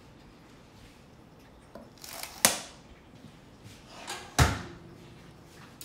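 Two sharp clanks about two seconds apart as a metal baking pan of fresh-baked shortcake biscuits comes out of the oven and is set down on a stone counter. The second clank is the heavier, with a low thump.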